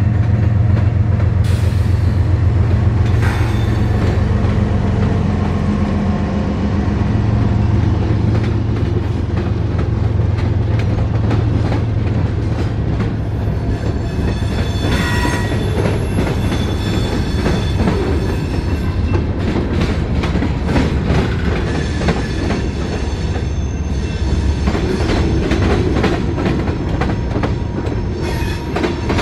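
A CSX GE diesel locomotive's engine goes by close for the first few seconds with a deep steady drone. It is followed by the freight cars of a manifest train rolling past, with a constant rumble of steel wheels on rail and rapid clicking over rail joints. About halfway through, a brief high wheel squeal rings out.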